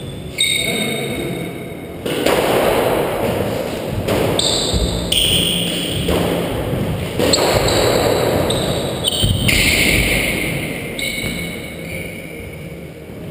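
Squash ball struck by rackets and thudding off the walls of the court, in a rally with repeated hits.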